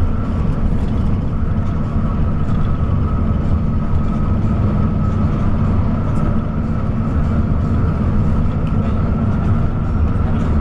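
Coach bus driving at highway speed: a steady drone of engine and road noise with a deep rumble, unchanging throughout.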